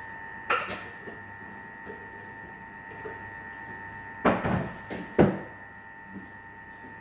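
A few sharp knocks and clatters of hard objects: one about half a second in, then a cluster of three or four around four to five seconds in. A steady high hum runs underneath.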